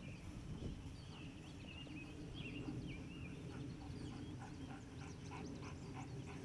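Birds chirping faintly over a low steady outdoor rumble, with a run of soft quick ticks in the second half.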